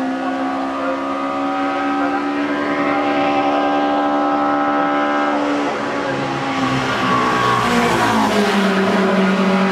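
Single-seater formula race car's engine at high revs as the car climbs towards the listener. The note holds steady, falls about halfway through, and settles lower near the end as it grows a little louder.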